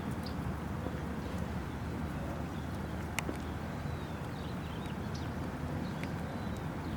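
Outdoor ambience: a steady low rumble with faint, scattered bird chirps, and one sharp click about three seconds in.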